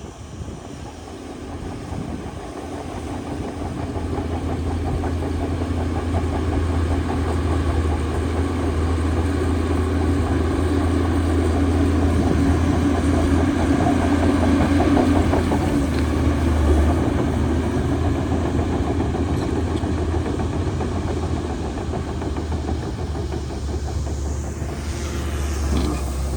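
Heavy diesel engine of earthmoving machinery running steadily, growing louder over the first ten seconds or so and then holding. A brief whining sweep comes near the end.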